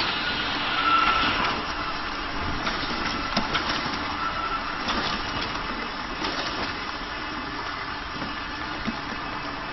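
Front-and-back labeling machine running: steady machine noise from the conveyor and labeling heads, with scattered light clicks as bottles pass through.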